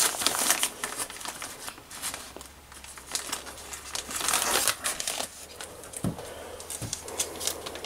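Plastic pack of grated Gouda crinkling as it is handled, in short irregular crackles.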